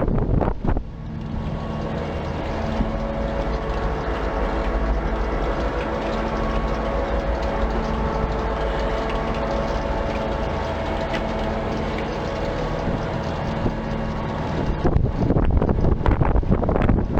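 A motor running with a steady hum, starting about a second in and cutting off after about fourteen seconds, followed by wind buffeting the microphone.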